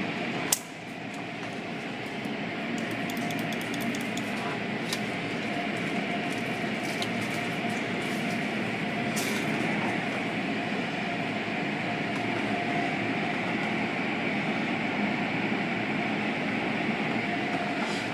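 Automatic car wash heard from inside the car: spinning cloth-strip brushes and water spray rushing against the body and windows in a steady wash of noise, over a faint steady hum from the wash machinery. A sharp knock about half a second in, and a few fainter clicks later.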